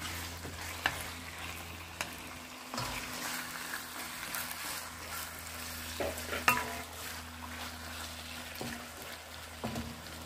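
Chicken breast pieces sizzling in a hot nonstick wok as they are stir-fried, turned with chopsticks and then a wooden spatula. The utensils knock against the pan every second or two.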